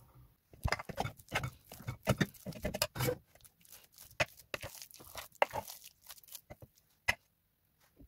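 Soft boiled chana dal being mashed: a quick, irregular run of wet squishing and crackling for about six seconds, then one sharp click near the end.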